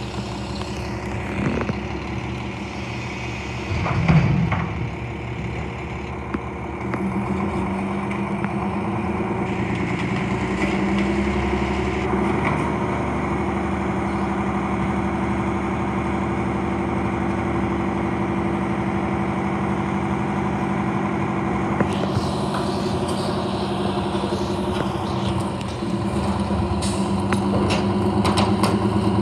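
Front-load garbage truck's diesel engine running, with a knock about four seconds in. About seven seconds in the engine speeds up and holds a steady higher hum.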